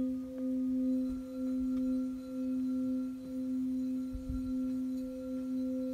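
Crystal singing bowls ringing: one low tone held and swelling in a slow wobble about once a second, with a higher bowl joining faintly after a light tap near the start. A brief low rumble about two thirds through.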